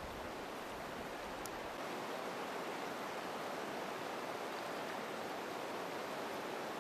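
Shallow, clear river flowing over rocks and stones: a steady rush of running water.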